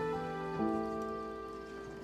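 Soft background music: sustained notes with a chord change about half a second in, slowly fading.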